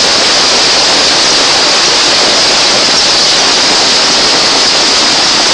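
Hailstorm: hail falling heavily in a loud, steady rush that does not let up.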